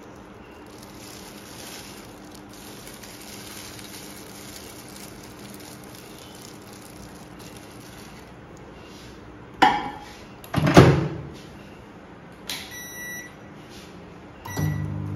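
Microwave oven door knocking twice as it opens and shuts, then a few short keypad beeps, and near the end the oven starting up with a steady electrical hum. Before this there is only soft handling noise.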